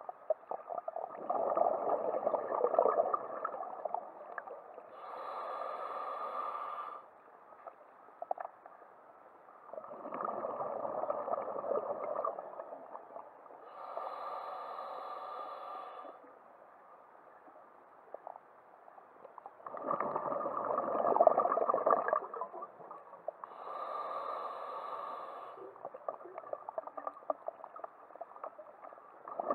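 Scuba diver breathing through a regulator, about once every ten seconds: a steady hiss of about two seconds as air is drawn in, then a louder burst of bubbles of about three seconds as the diver breathes out. Three full breaths, with the next exhale starting at the very end.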